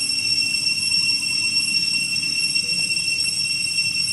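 Steady high-pitched drone of cicadas: several even, unbroken whining tones, over a low steady background noise.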